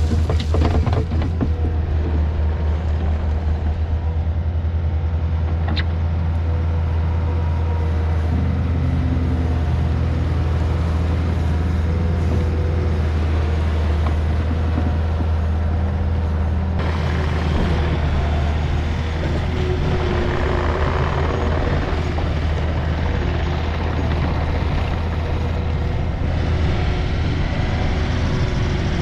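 Takeuchi compact track loader's diesel engine running steadily with a deep, constant hum while it pushes and spreads gravel. A little past halfway, a rougher, hissier noise joins the engine.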